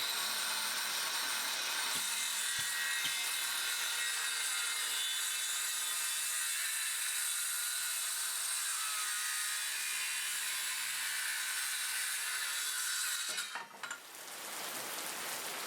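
Cordless circular saw cutting through a 2x4, a steady high hiss of the blade in the wood that stops abruptly about 13 seconds in, leaving a fainter hiss.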